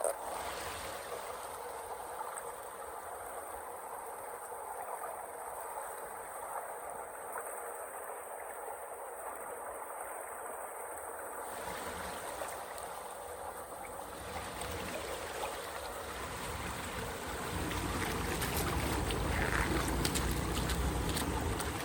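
Running water flowing steadily, like a stream. About halfway through, a low rumble joins it and grows louder toward the end.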